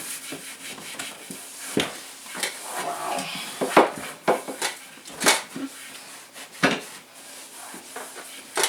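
Scattered knocks and light clatter of pantry containers and items being handled, with rubbing as a shelf is wiped out.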